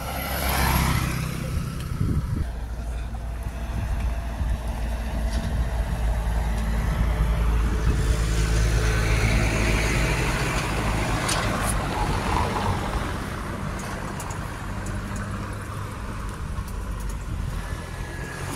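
Road vehicles' engines running close by as a steady low drone, swelling as traffic passes from about eight to twelve seconds in.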